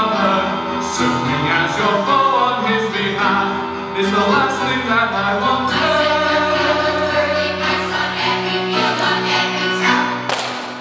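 Children's choir singing a dramatic song over recorded instrumental accompaniment.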